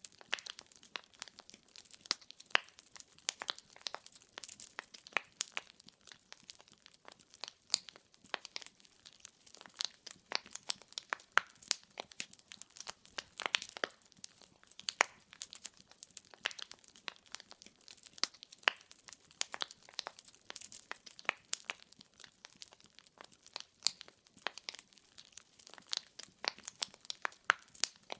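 Firewood logs burning in a fireplace, crackling steadily with irregular sharp pops, several a second and uneven in loudness.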